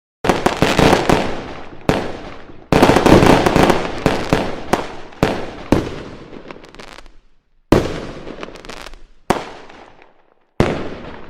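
Fireworks going off: about nine sharp bangs, each followed by crackling that dies away over a second or two.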